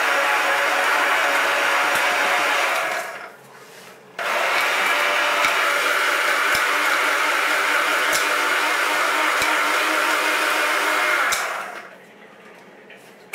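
Small electric grinder running, grinding acorns down to a fine powder. It runs in two long bursts, cutting out for about a second near three seconds in and stopping for good near the end.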